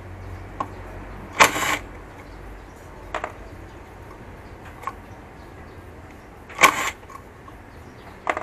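Cordless DeWalt driver run in two short bursts, about a second and a half in and again near seven seconds, backing out the Torx T25 screws of a scooter's front-wheel speed sensor. Light metallic clicks of tool and parts handling in between.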